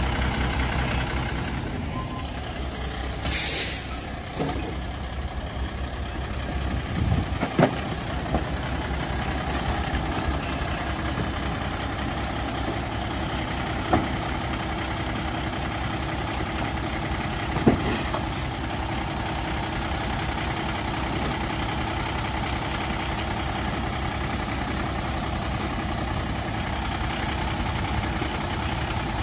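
1996 Volvo WXLL garbage truck's diesel engine idling steadily, with a loud burst of air hiss about two seconds in. A few sharp knocks follow later as debris is tossed into the side-loading hopper.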